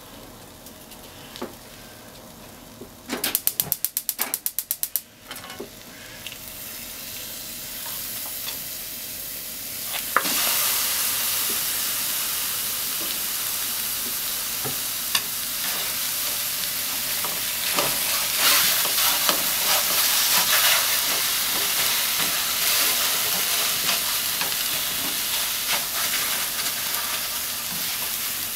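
Ham and scrambled egg frying quietly in a nonstick frying pan, broken about three seconds in by a rapid run of about a dozen loud clicks. About ten seconds in, a block of tofu goes into the hot pan with a sudden loud sizzle that carries on steadily, with scattered scrapes and knocks of a spatula stirring.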